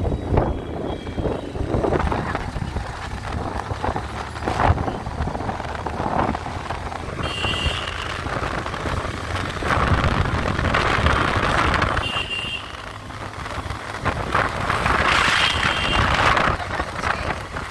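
Wind buffeting the phone microphone and the rumble of engines and tyres while riding a motorbike through city traffic, with three short horn honks, the first about halfway through.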